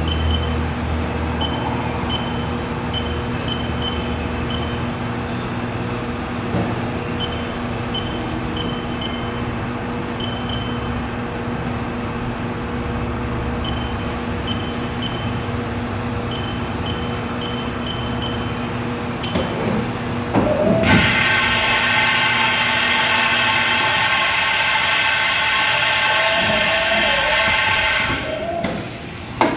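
Haas VF-3YT/50 vertical machining center running with a steady motor hum and faint short chirps repeating about once a second. About twenty seconds in, a rising whine builds into a much louder whine over a hiss, the 50-taper spindle running at speed. It stops suddenly near the end.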